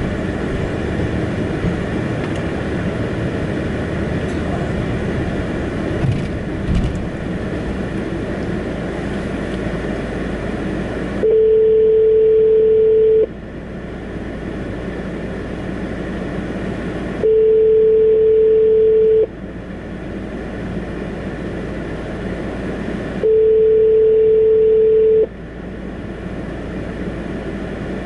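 Steady car cabin rumble while driving. From about eleven seconds in, a phone call's ringback tone takes over: a steady tone lasting about two seconds, repeating every six seconds, three times. This is the standard North American ringing signal of a call not yet picked up.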